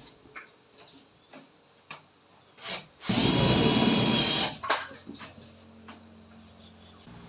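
A handheld power tool runs in one burst of about a second and a half, a whining tone over a buzz, and stops abruptly. Light knocks and clicks of handling come before and after it.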